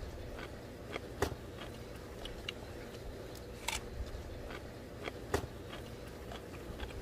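Chewing and crunching on a raw green onion stalk: a few sharp, separate crunches spread over several seconds, over a low steady background rumble.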